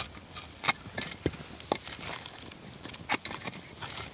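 Pieces of split firewood knocked and set into place on a small crackling campfire: a series of irregular sharp knocks and pops.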